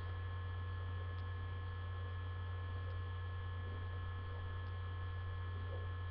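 Steady low electrical hum with faint high steady whine tones above it, unchanging throughout.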